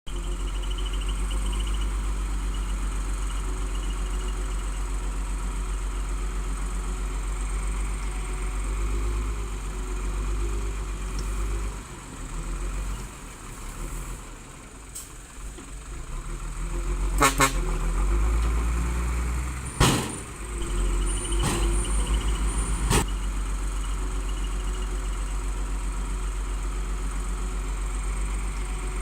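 Heavy construction machinery engine running steadily with a low rumble, easing off for a few seconds midway, followed by four sharp metallic clanks spread over several seconds before the steady running resumes.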